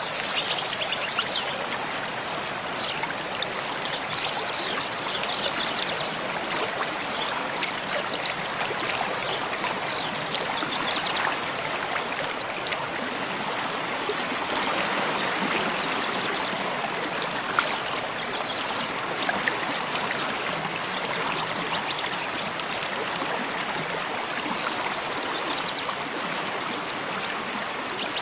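Mountain stream flowing steadily over rocks, a dense, even rush of water. Short, high bird chirps come through it here and there, a cluster in the first dozen seconds and a few more later.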